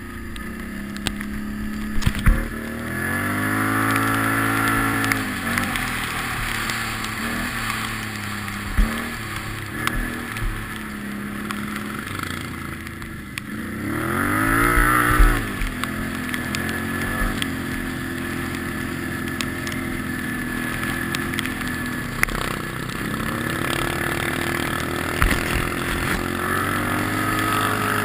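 ATV engine running under way, its pitch rising and falling with the throttle and swelling strongly twice, with scattered knocks from the bumpy trail.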